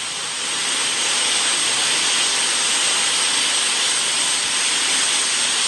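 Steady, loud hiss of noise with a thin high whine held above it.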